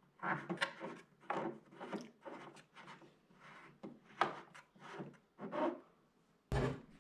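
Irregular rubbing and scraping from objects being handled, with a heavy thump about six and a half seconds in.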